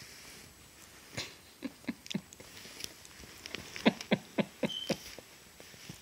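A toddler's mouth right at the phone's microphone making short smacking, chomping pops. There are about four spread over the first couple of seconds, then a quicker run of five around the middle.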